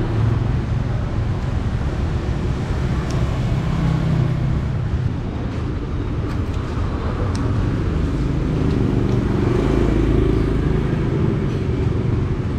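Steady street traffic: motor vehicle engines running past, with one engine growing louder about ten seconds in.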